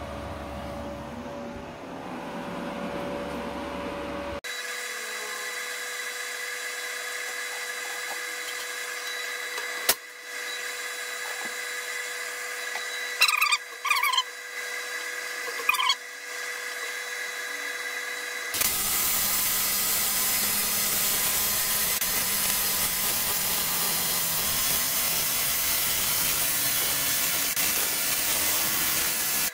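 Rossi TIG160A MK III AC/DC inverter TIG welder idling with a steady whine, with a few brief chirps a little past the middle. About 18 seconds in, the AC arc at about 104 amps strikes on the aluminium cylinder head and runs as a steady, louder buzzing hiss.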